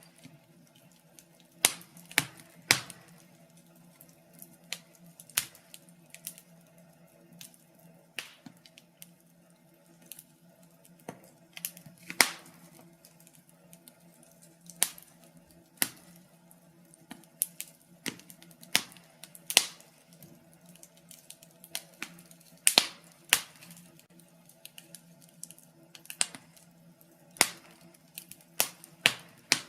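Wood fire burning in a fireplace, crackling with irregular sharp pops and snaps scattered through, some much louder than others, over a faint steady hum.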